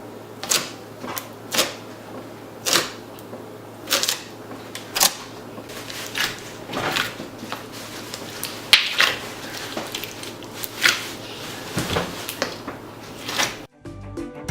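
Slime being squished and poked by hand: irregular sticky pops and crackles, one or two a second, over a faint low hum.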